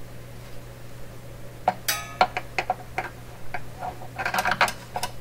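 A screwdriver and screw clicking and scraping against the metal chassis of a 1928 RCA Victor Model 28V radio as a screw is worked toward a mounting hole. The sharp, irregular metallic clicks start about a second and a half in and come thicker near the end.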